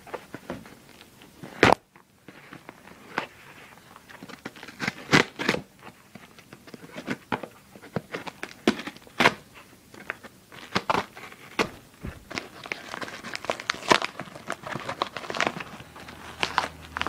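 Mailed packaging being torn open and crumpled by hand: a run of irregular crackles, rips and crinkles, busiest near the end.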